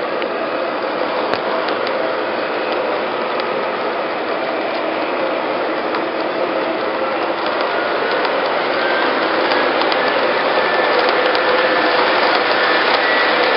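O-gauge model freight cars rolling past on metal track: a steady clattering rumble of wheels and trucks, growing a little louder near the end.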